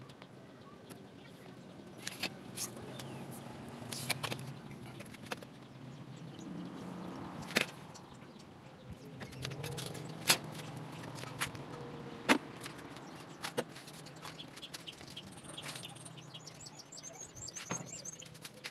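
Scattered light clicks and taps from handling a folding ruler and marker against an old refrigerator's side panel while measuring and marking it out, with a few high bird chirps near the end.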